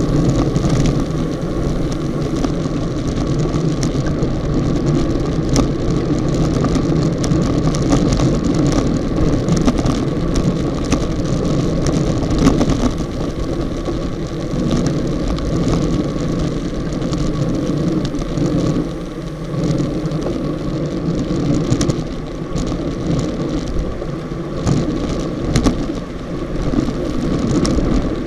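Steady rush of wind and road noise on a bike-mounted Contour+ action camera riding in a road-race bunch at about 40 km/h, with frequent small knocks and rattles from the shaking camera mount.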